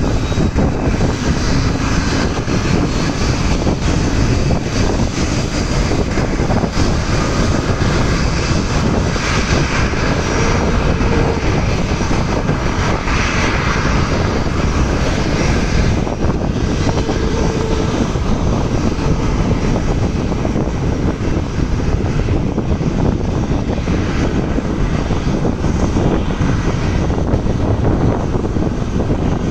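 Boeing 737-700's CFM56-7B jet engines running with a loud, steady noise.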